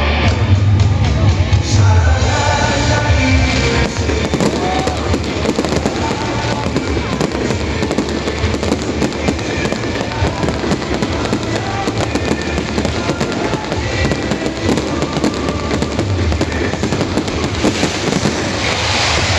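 Fireworks going off in a dense barrage of rapid bangs and crackling, over music.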